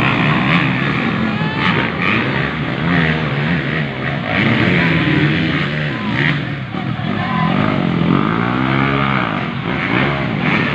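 Motocross dirt bike engines revving through the gears on a muddy track, their pitch rising and falling as riders open and close the throttle, with a strong rise and fall about eight seconds in.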